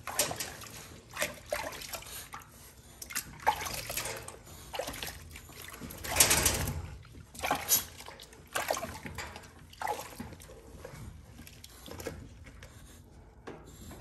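Soapy water splashing and trickling in a plastic tub as a hand washes a Yorkie puppy standing in it. The splashes come in uneven bursts, the biggest about six seconds in.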